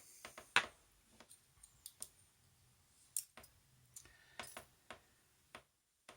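Irregular small clicks and taps from the pins and parts of a Squire SAL40 padlock being handled and set down while the lock is taken apart.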